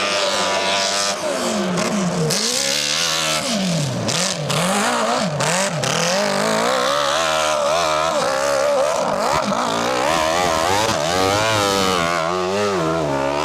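Motorcycle engine revving hard over and over, its pitch dropping and climbing again about once a second, as when riding off-road.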